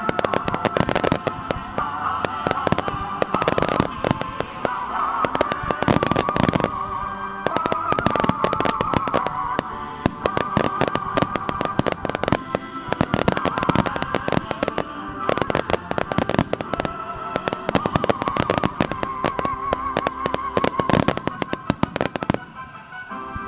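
Starmine fireworks barrage: a rapid, dense run of firework bursts and crackles going on continuously, over music with a wavering melody line. The bursts thin out briefly near the end.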